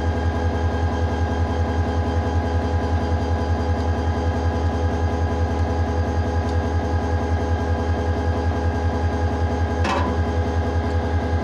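Diesel locomotive engine idling with a steady, rapidly pulsing low throb and a constant hum above it. A single sharp knock near the end.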